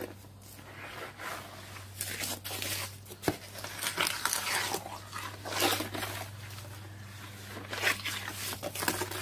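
Cloth being dipped and worked by hand in a tub of wet concrete mix: irregular rustling handling noises, with one sharp knock about three seconds in.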